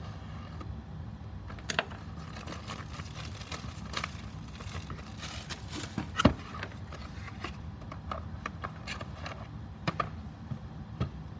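A sealed cardboard charger box being opened and the charger lifted out: scraping and rustling of cardboard with several sharp knocks, the loudest a little after halfway.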